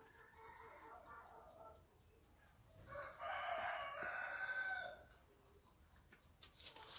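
A rooster crowing: a fainter crow at the start, then a louder, long crow of about two seconds in the middle.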